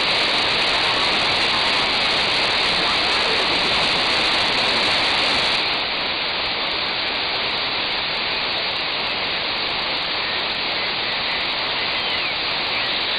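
Software-defined radio receiver on the 2 m band in sideband mode, putting out a steady hiss of band noise with a few faint drifting whistles of carriers. About six seconds in, the top of the hiss is suddenly cut off.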